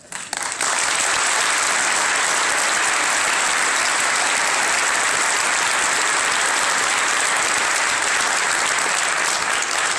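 Audience applauding, breaking out about half a second in and then holding steady and loud.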